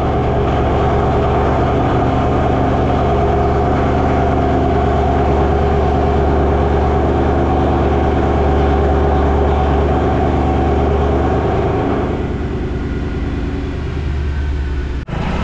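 Mercedes-Benz C-Class engine idling, loud and steady. It gets a little thinner about twelve seconds in.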